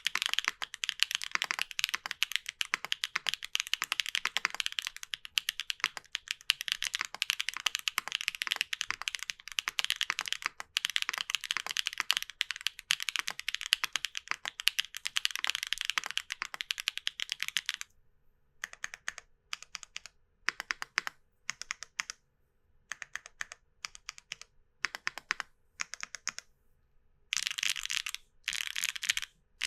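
Mechanical keyboard typing: lubed full-POM Gateron Banana Smoothie heavy tactile switches in a Tess65 with an aluminium plate. Fast, continuous keystrokes for about the first 18 seconds, then slower scattered keypresses and short runs, with another quick run near the end.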